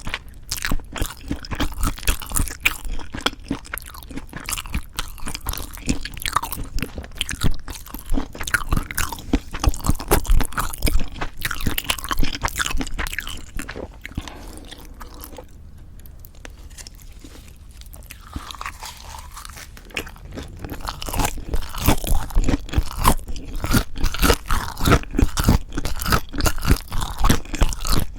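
Close-miked chewing of food, with crisp crunching bites. It eases off for a few seconds past the middle, then picks up again.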